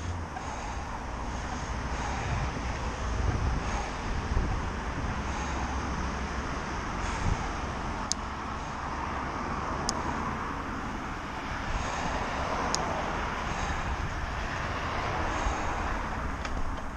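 Steady road noise from cars passing on the dual carriageway beside the cycle path, mixed with wind rushing over a forehead-mounted GoPro as the bike rides along.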